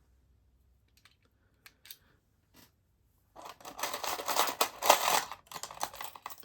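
Small metal lock-picking tools clinking and rattling as they are handled: a few faint clicks, then a dense clatter for the last three seconds.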